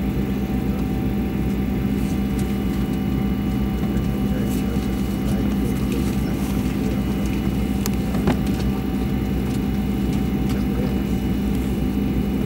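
Steady low mechanical drone heard inside a vehicle cabin, with a strong even hum and a few thin steady whining tones over it. A single sharp click comes about eight seconds in.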